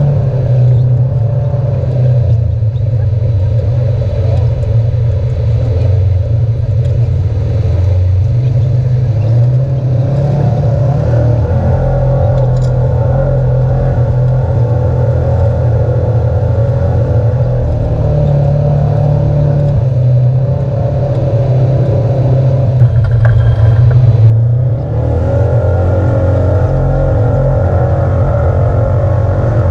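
Side-by-side off-road vehicle's engine running steadily as it drives along a dirt trail. About five seconds before the end the engine swells briefly, then drops for a moment before carrying on.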